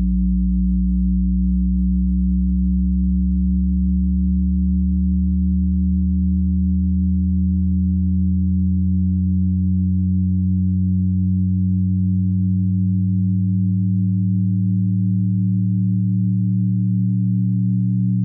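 A steady electronic drone of several low pure tones sounding together, the lowest ones slowly fading out while others fade in; one upper tone steps slightly lower near the end.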